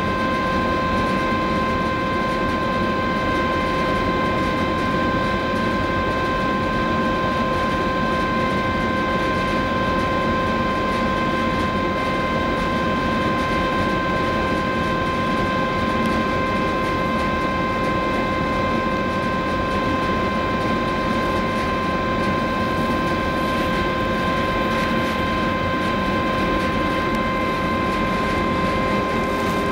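Large cruise ferry's engines and machinery giving a steady drone, with a constant whine of several steady tones on top, as the ship pulls away from its berth.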